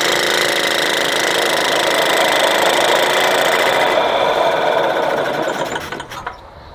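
Solex 2200 moped's small two-stroke engine running steadily at the end of its test run, then being shut off: it runs down about four seconds in and dies out near six seconds, with a few clicks as it stops.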